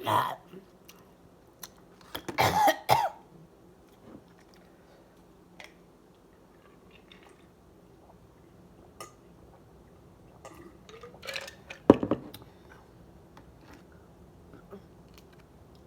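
A person coughing and clearing their throat while eating, in two loud bouts, one about two seconds in and one near the end. Small clicks of eating come between them.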